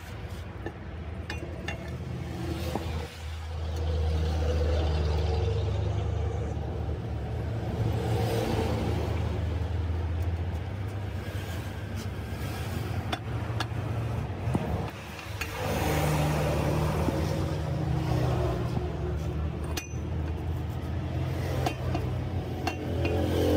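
A truck engine running, its speed shifting up and down a few times, with light metallic clicks now and then.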